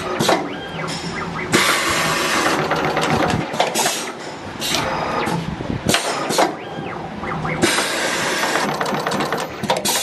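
An automatic wire stripping and crimping machine cycling on multi-core wire: sharp mechanical clicks and knocks from its stripping and crimping strokes, with two longer stretches of hissing.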